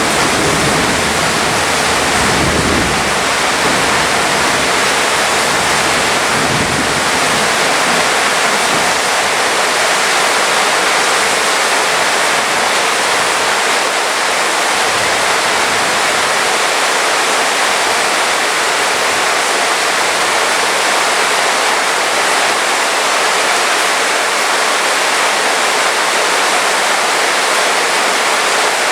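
Heavy rain pouring down in a steady, dense hiss. A low rumble of thunder dies away in the first few seconds, with a brief return a few seconds later.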